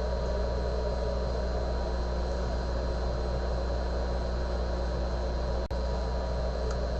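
Steady electrical hum with a faint high whine and hiss from the lab equipment while the fiber cleaver runs its automatic cycle; no distinct cleave click stands out. The sound drops out for an instant about five and a half seconds in.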